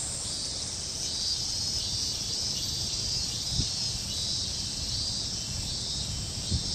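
Steady high-pitched chirring of an insect chorus, crickets or similar, with a couple of faint low thumps.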